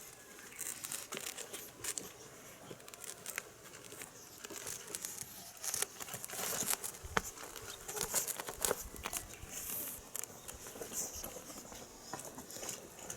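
Irregular rustling, crinkling and light scratching clicks from kittens scrabbling and playing with a toy, busiest in the middle.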